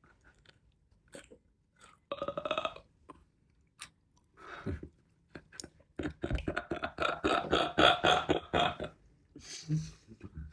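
A man making wordless vocal sounds while eating: a short one about two seconds in and a longer one of about three seconds from six seconds in, with small mouth clicks and chewing between.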